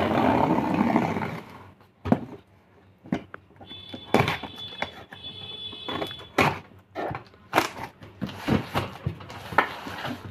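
Scissors slitting the packing tape along the seam of a cardboard box, starting with a loud scraping slice about a second and a half long, then scattered clicks and taps as the blade and the cardboard are handled.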